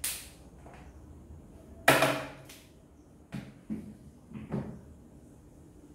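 Whiteboard marker knocking and tapping against the board while writing. The board gives a hollow knock, loudest about two seconds in, followed by several lighter taps.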